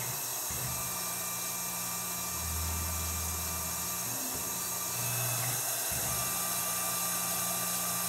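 Tormach PCNC 1100 CNC mill spindle running a form tap into titanium through a tension-compression tapping head: a steady machine whir with a high hiss over it, changing pitch several times as the spindle speeds up, slows and starts again.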